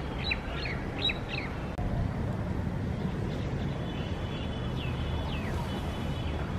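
Small birds chirping in quick, short calls, in a cluster at the start and again about five seconds in, over a steady low rumble of city traffic. The whole sound drops out for an instant about two seconds in.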